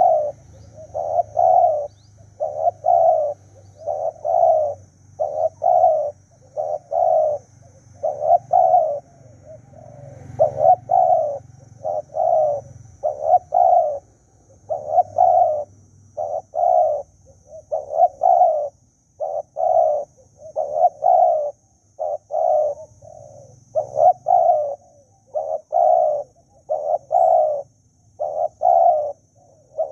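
Spotted dove cooing: a long run of short, low coos at about one to two a second, in uneven groups.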